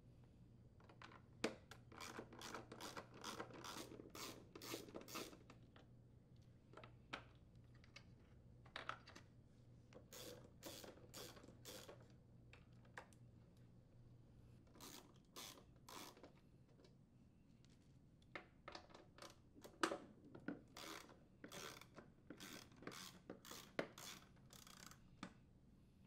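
Ratchet wrench with a 3/8-inch socket clicking in short runs as it unthreads the screws holding a mower's front transmission cover, with pauses between screws. The clicking is faint.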